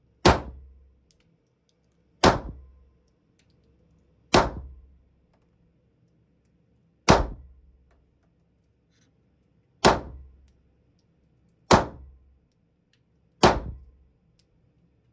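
Semi-automatic pistol fired seven times as single aimed shots, about two to three seconds apart. Each is a sharp crack followed by a short echo that dies away within about half a second, in an indoor range lined with sound-absorbing foam.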